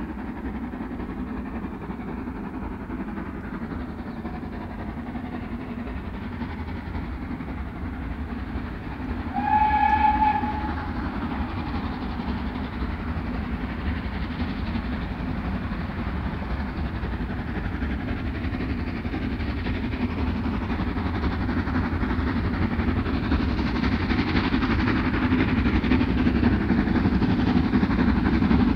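Steam train running with a steady rumble that grows louder toward the end. About a third of the way in, the locomotive's whistle sounds once, briefly.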